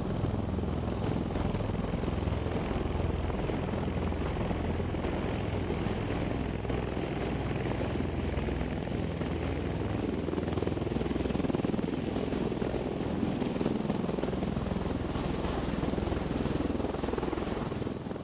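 MV-22 Osprey tiltrotors hovering in helicopter mode: steady rotor and engine noise with a heavy low rumble, fading out near the end.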